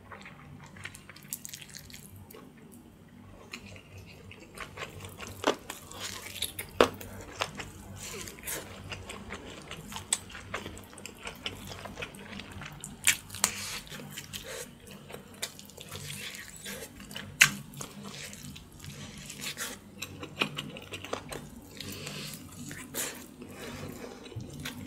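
Close-miked wet mouth sounds of a man eating Thai spicy pork backbone: gnawing and chewing the meat off the bone, with irregular sharp, wet smacks and clicks.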